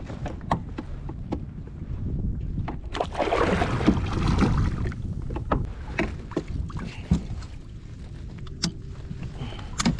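Water splashing and lapping against a fishing kayak, with wind on the microphone and scattered knocks and clicks. A louder stretch of splashing lasts about two seconds, from about three seconds in.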